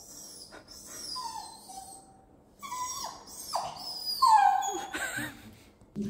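Dachshund whining and whimpering: a string of high, falling whines, louder in the second half.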